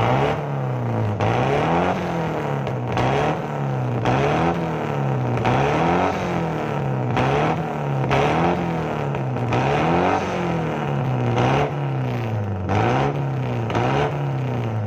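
Toyota Kijang Krista engine revved in repeated throttle blips, about one a second, through a newly fitted aftermarket HKS racing muffler. The pitch rises and falls with each blip, with the deep, smooth exhaust note the muffler was chosen for.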